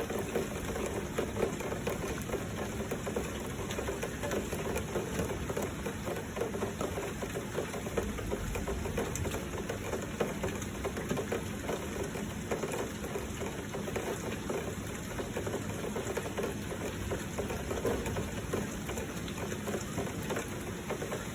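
Heavy rain falling with flowing water, a steady dense hiss and crackle of drops.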